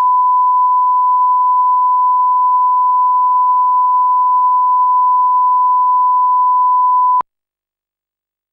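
Broadcast line-up test tone played over colour bars: one steady, unwavering 1 kHz reference tone that cuts off sharply about seven seconds in.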